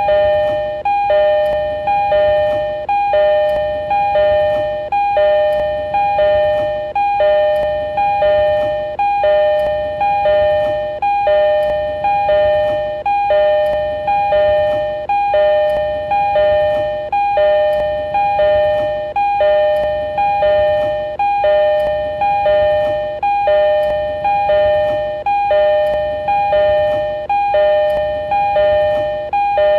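JR East E231 series train door chime: a two-note chime, high then low, repeating about once a second without pause.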